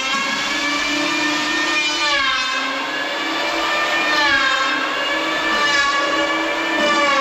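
Electric power tool working wood, its motor whining steadily with the pitch sagging under load and recovering, twice dipping noticeably.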